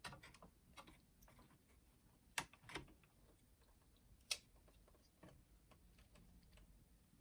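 Faint, scattered clicks and taps of small parts being handled as the motor is fitted back into a boombox cassette mechanism, with three sharper clicks about two and a half and four and a half seconds in.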